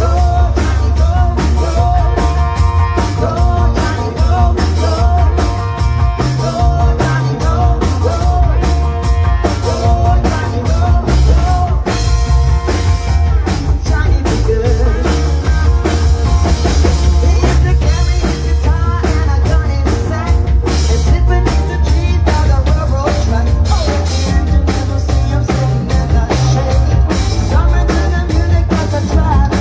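A rock band playing with a full drum kit keeping a steady beat under heavy bass and wavering melodic lines.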